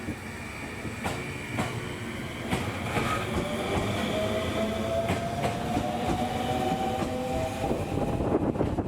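A train running at the platform, its wheels clicking over rail joints and growing louder. A whine rises slowly in pitch from about halfway through.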